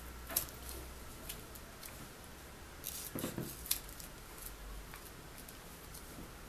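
Scissors snipping through a folded bundle of plastic gift ribbon: a series of short, sharp cuts with brief pauses between them, bunched closest together about halfway through.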